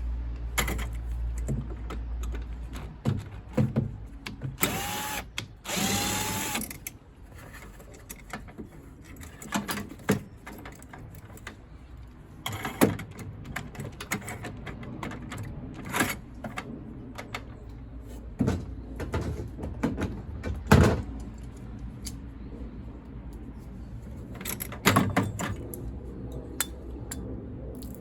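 Two short runs of a cordless drill-driver about five and six seconds in, each spinning up to speed. Around them are scattered clicks and knocks of tools and metal parts being handled while a combi boiler is stripped down.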